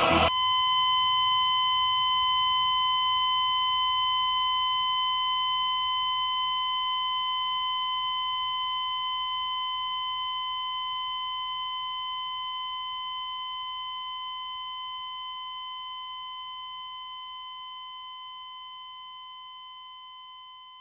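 A single high ringing tone with bright overtones starts sharply as the choral music cuts off, then holds at one pitch while fading slowly and evenly over about twenty seconds: the closing note of the soundtrack music.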